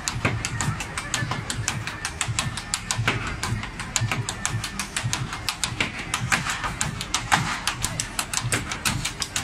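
Ottawa Valley step dancing: fast, rhythmic shoe taps on a stage floor, several sharp clicks a second with low thumps of heel and toe under them. The taps turn denser near the end as a second dancer joins.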